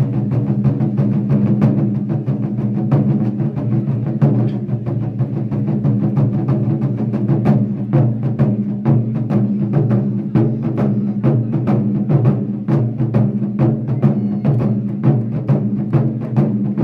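An ensemble of Japanese taiko drums beaten with sticks in a fast, continuous rhythm of dense strikes.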